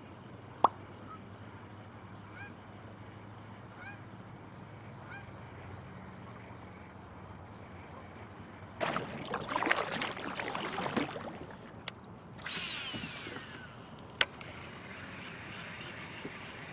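Birds calling over open water: a few faint short calls in the first five seconds, then a loud run of wavering calls lasting about two seconds, about nine seconds in, followed by a single falling call. Two sharp clicks stand out, one right at the start and one about fourteen seconds in.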